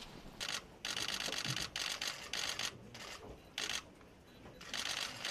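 Press photographers' camera shutters firing in repeated short bursts of rapid clicks, one burst after another with brief pauses between.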